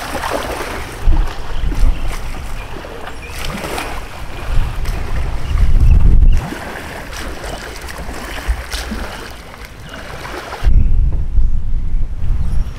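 Wind buffeting the microphone in gusts, loudest about halfway through and again near the end, over splashing and sloshing of shallow floodwater as a man wades through it and paddles an inflatable kayak.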